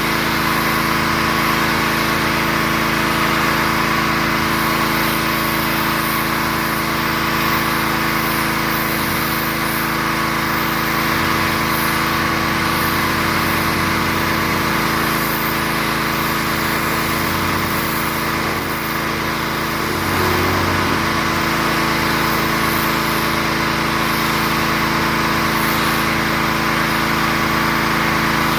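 Pressure washer's gas engine running steadily, with an even hiss over the engine hum.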